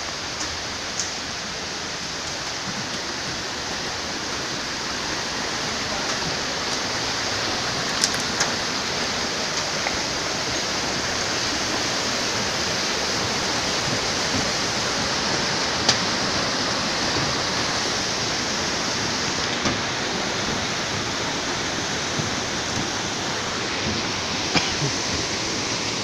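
Steady rush of a river cascading over boulders, with a few brief clicks scattered through it.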